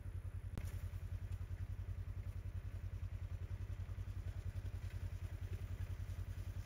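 A small engine idling with a steady, low, evenly pulsing rumble, with a single click about half a second in.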